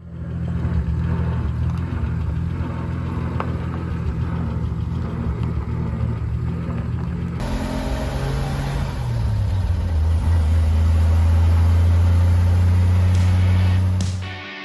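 Vehicle engine running with a steady low drone. About halfway the sound changes abruptly and the pitch drops, then it holds a louder, steady drone until it cuts off near the end.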